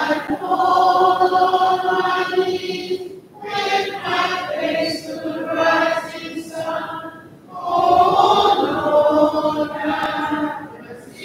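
Voices singing a slow melody in long held notes, in phrases with short breaks about three seconds and seven and a half seconds in.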